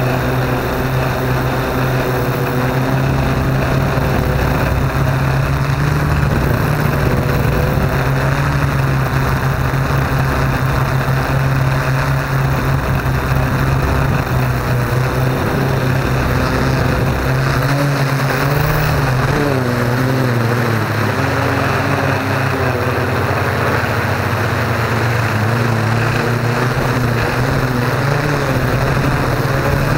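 Yuneec Typhoon Q500 quadcopter's electric motors and propellers humming steadily, heard from on board the drone; the pitch wavers up and down around twenty seconds in as the motor speeds change.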